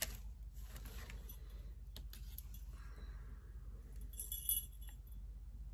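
Small bells on a dream catcher jingling briefly as it is handled, a short cluster of high, light jingles about four seconds in, among faint clicks and rustles of handling.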